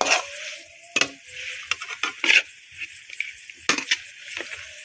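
Metal kitchen utensils clinking and knocking against cookware, a few sharp clinks spaced about a second apart with light clatter in between.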